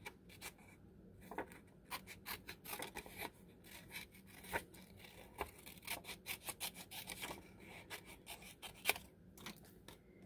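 A printed paper sheet being handled and bent by hand, giving faint, irregular rustles and crackles with a few sharper crinkles.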